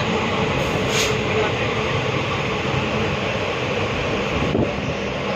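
Express passenger train running, heard from inside the coach: a steady rumble of wheels and carriage, with a brief hiss about a second in.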